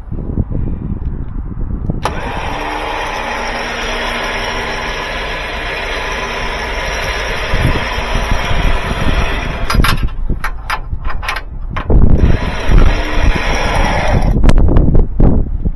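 Nissan Sentra's engine cranked by its starter on a freezing day, a no-start: one long crank starting suddenly about two seconds in and lasting about eight seconds, then a shorter, louder attempt about twelve seconds in.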